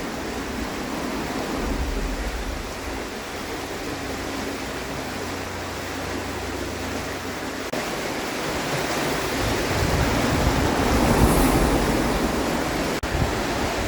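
Fast-running river water rushing steadily, the current high and rough. It swells a little about ten seconds in.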